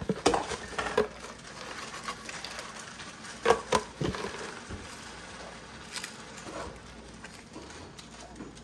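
Dried bay leaves rattling in a clear plastic spice container as they are shaken out by hand onto seasoned beef roasts, with scattered light taps and crinkles of the container; the sharpest taps come about a second in and around three and a half seconds in.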